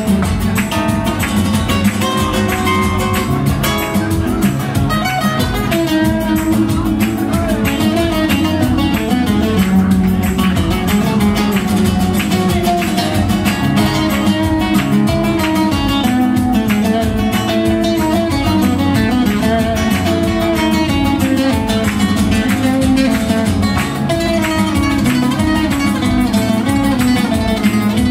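Several acoustic nylon-string guitars playing together in a Gypsy rumba flamenco style, with a driving strummed rhythm under picked melody lines.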